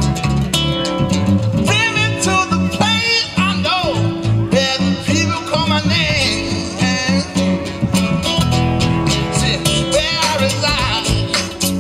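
Band music with guitar and a singing voice over a steady beat.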